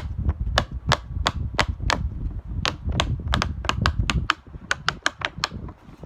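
Fidget toy's push bubbles being pressed one after another: a quick, uneven run of sharp pops, about three or four a second, over a low rumble that stops about four seconds in. The bubbles are a little stiff to press.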